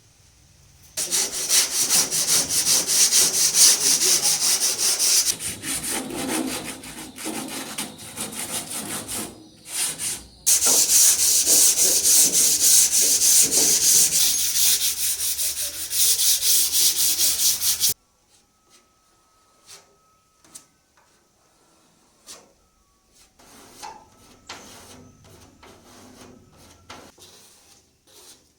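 Hand sanding on a three-wheeler's body: sandpaper rubbing back and forth in rapid, loud strokes. It cuts off suddenly about two-thirds of the way in and gives way to faint scraping and small clicks.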